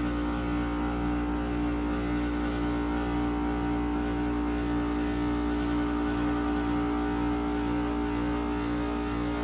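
2016 Amana heat pump outdoor unit running steadily through its defrost cycle: a constant compressor hum with one strong steady tone and a faint low pulsing about twice a second.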